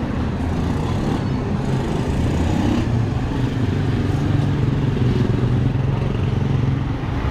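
Street traffic close by: the steady engine hum of a passenger jeepney and a motorcycle coming up the road, swelling a little partway through, over constant street noise.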